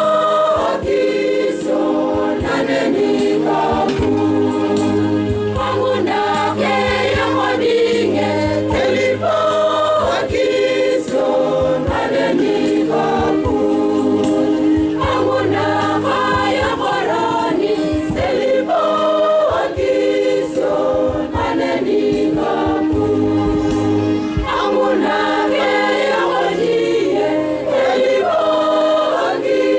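Catholic church choir singing a hymn over a steady low accompaniment, with regular sharp percussive beats throughout.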